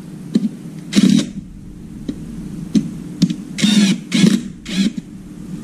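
Metal parts of a partly dismantled power tool being handled and worked with a hand tool: a sharp click-and-scrape about a second in, then a quick run of short scrapes and clicks near the end, over a steady low hum.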